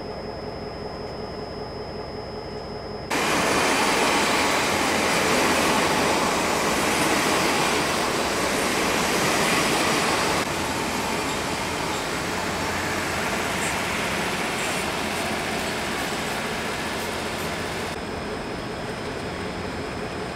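A diesel multiple-unit train passing close by on the adjacent track: a steady rumble and rush of wheels on rail that comes in abruptly about three seconds in, is loudest until about ten seconds, then carries on softer.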